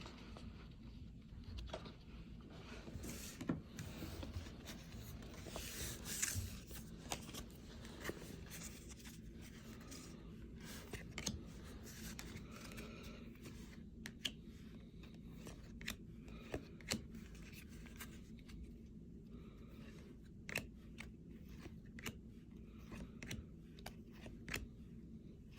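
Baseball cards being handled and flipped through by hand: faint, irregular soft clicks and brief rustles over a low steady room hum.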